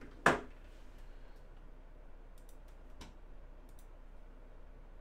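A sharp click about a third of a second in, then a fainter click about three seconds in, with a few light ticks around it.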